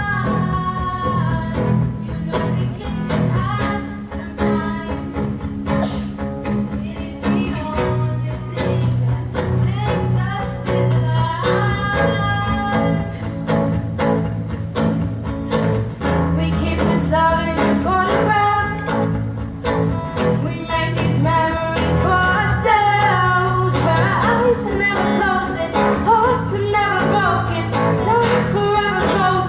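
A group of girls singing a song into microphones, accompanied by an acoustic guitar, with steady low sustained notes underneath.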